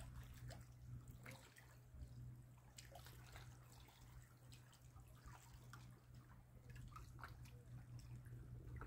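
Near silence: faint small-wave lapping and dripping against shore rocks, in scattered little ticks and splashes, over a steady low hum.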